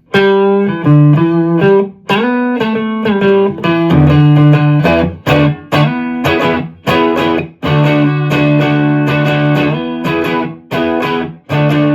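Electric guitar played through a pedalboard with a Keeley Pure Sky overdrive engaged: picked single notes and chords ringing out over held low notes, with a few short breaks between phrases.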